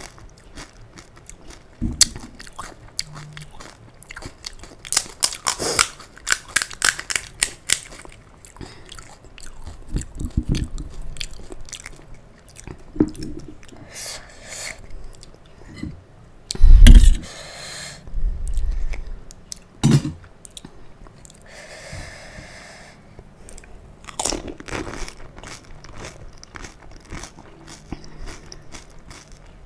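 Close-miked crunching and chewing of crisp hollow panipuri (golgappa) shells, bitten and chewed. There is a run of quick, sharp crunches about five seconds in, and a loud low thump past the middle.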